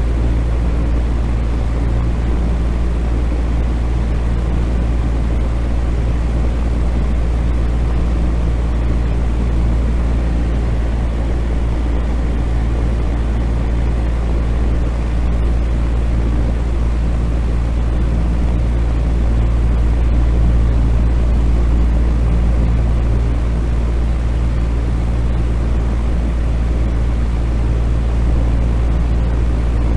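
Ventilation fan running steadily: an even rush of air over a strong, deep, unchanging hum.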